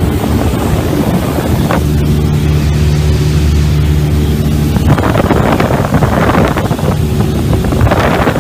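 Cessna light aircraft's engine droning steadily, heard from inside the cabin. From about five seconds in, rustling and scraping noise right at the microphone rises over the drone.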